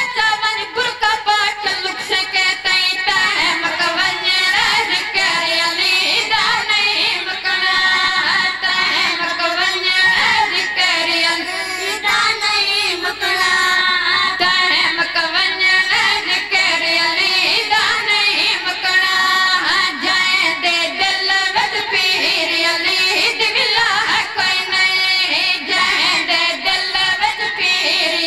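Boys singing a qasida (devotional praise poem) into stage microphones, a continuous high sung melody with wavering vibrato.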